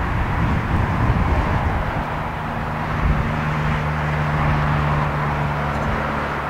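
Airbus A320-214's CFM56 turbofan engines at takeoff thrust during the takeoff roll: a steady jet rush, with a low steady hum joining about two seconds in.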